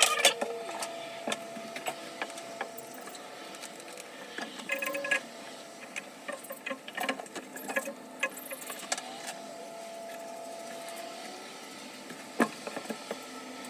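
Irregular clicks, taps and light knocks of hand tools and metal parts being handled, with a faint steady hum underneath.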